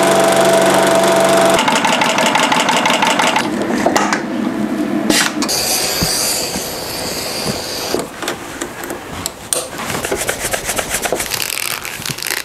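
Workshop sounds of leatherwork in quick succession, changing every few seconds: a post-bed sewing machine running as it stitches a leather strap, then a knife drawn through leather along a straightedge, then rubbing and clicking as leather is handled.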